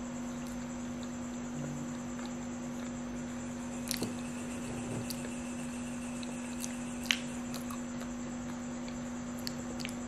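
Mouth sounds of a person eating a soft banana: quiet wet chewing with a few sharp mouth clicks, the loudest about seven seconds in. A steady electrical hum runs underneath.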